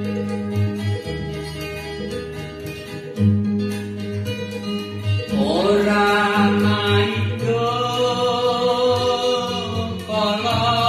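Recorded music played through a pair of Revolution Audio bookshelf speakers: plucked strings over steady bass notes, with a voice coming in about halfway.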